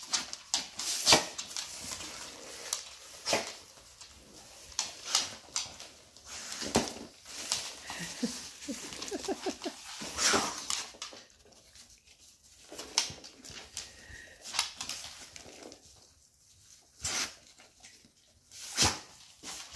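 Golden retriever tearing and crinkling Christmas wrapping paper with its mouth and paws, in irregular short rips and rustles, with a brief whine about nine seconds in.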